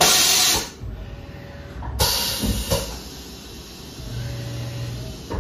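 Tormach 1100MX CNC mill changing tools with its automatic tool changer: a sharp blast of compressed air from the pneumatic drawbar at the start, a second longer blast about two seconds in followed by two clunks as the tool releases and seats, then a short low hum near the end.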